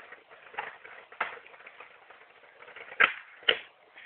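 A few sharp knocks over faint background noise. The two loudest come near the end, about half a second apart.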